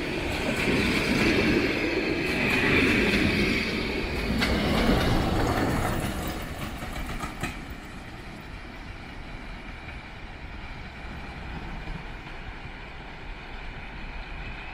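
Steam-hauled passenger train passing close: coaches rolling by with wheel rumble and a few clicks of wheels over the rails. Then the sound falls away to a quieter, steady rumble about halfway through as the train draws off into the distance.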